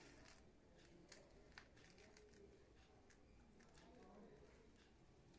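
Near silence: quiet room tone with a few faint clicks.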